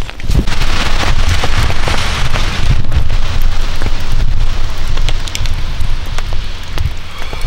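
Rain falling on the tent's rainfly and the wet ground, many separate drop taps over a steady hiss, with a constant low rumble on the microphone.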